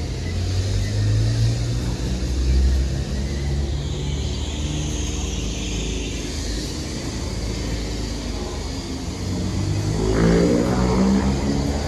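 City street traffic: motor vehicle engines running close by, with one vehicle pulling away and its engine rising near the end.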